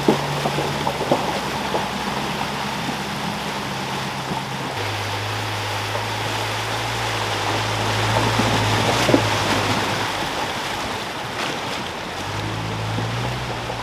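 Fast-flowing floodwater rushing steadily past, with the low hum of 4WD engines as the vehicles wade through it at walking pace. The engine note drops in pitch about five seconds in, fades out near ten seconds and comes back briefly near the end, with a few splashes and knocks.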